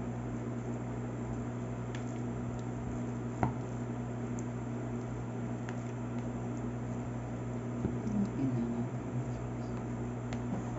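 A spoon stirring a thick, sticky filling of cream cheese with minced imitation crab and shrimp in a bowl, making soft squelching sounds, with a light click about three and a half seconds in. A steady low hum runs underneath.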